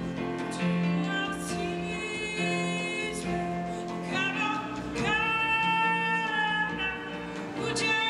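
Female soloist singing with sustained low notes held beneath her. About five seconds in she holds one long note.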